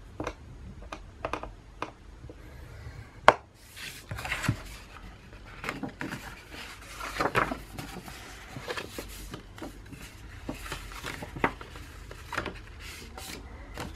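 Patterned paper being handled on a plastic scoring board: rustling and sliding of the sheet, with scattered light taps and clicks of paper and hands against the board and one sharp click about three seconds in.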